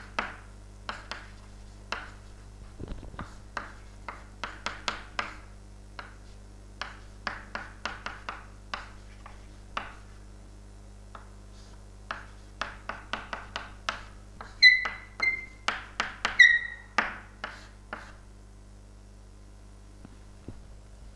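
Chalk writing on a chalkboard: quick, irregular taps and scratchy strokes as numbers and symbols are written, with a few short, high squeaks of the chalk a little past the middle. The writing stops about three seconds before the end.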